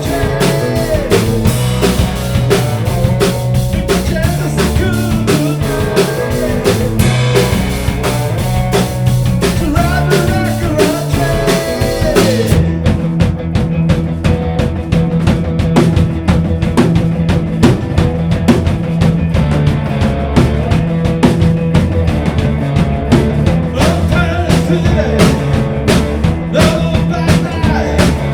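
Rock band playing, with a steady drum-kit beat of bass drum and snare under pitched instrument lines. About halfway through the cymbal wash drops out and the drums and bass carry on.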